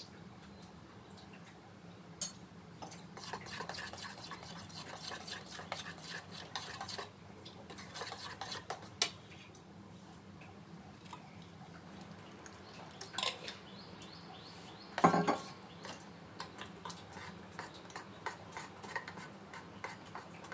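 Steel spoon stirring thick rice-and-coconut batter in a steel bowl, scraping and clinking against the sides. There are a few sharp knocks of spoon on bowl; the loudest clatter comes about fifteen seconds in.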